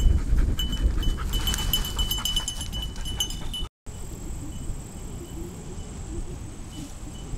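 A tracking dog's collar bell jingling in quick, repeated small rings as the dog moves through grass, over a low rumble. After a sudden cut about four seconds in, only faint outdoor ambience with a steady high hiss remains.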